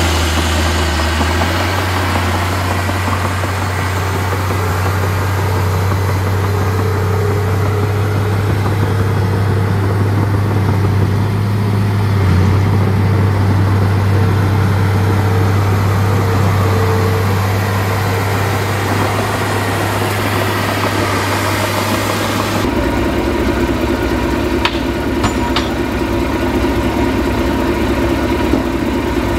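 Heavy diesel earthmoving machinery, a dozer and dump trucks, running steadily with a deep engine hum. About three-quarters of the way through the sound changes abruptly to a different engine note, with a few faint clicks just after.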